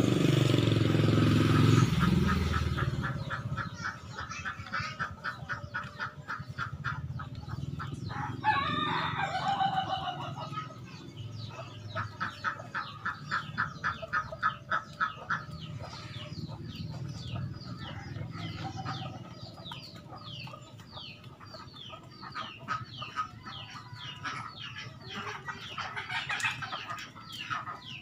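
A fighting rooster crows once, about a third of the way in, while fast rhythmic chirping runs in the background. A passing motor vehicle is loud at the start and fades within the first two seconds.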